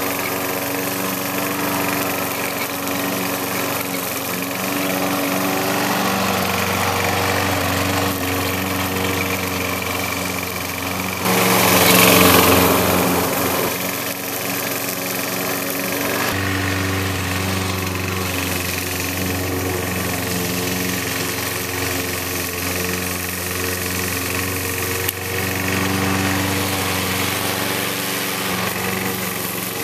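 Gasoline walk-behind lawn mower engine running steadily while cutting tall grass, its note shifting a little as the load changes. About eleven seconds in it grows louder and rougher for a few seconds.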